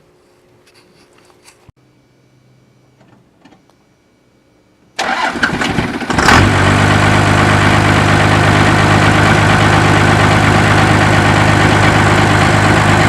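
First-generation Dodge Cummins 5.9-litre inline-six diesel cranking for about a second and catching on the first crank about five seconds in, then idling steadily. It runs with some air still in the injectors after the new lift pump was primed.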